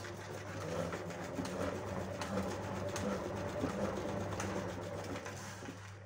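Tupperware salad spinner turned by hand, spinning washed, chopped red cabbage dry: a steady plastic whirring with fast, fine ticking.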